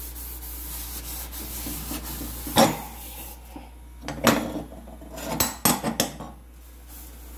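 Sponge scrubbing a soapy stainless-steel gas stovetop, a steady rubbing, with sharp knocks and clatters on the metal about two and a half seconds in and again several times between four and six seconds.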